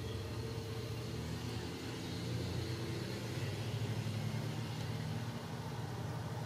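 Ragdoll kittens purring as they are stroked: a steady low rumble, a little louder in the middle.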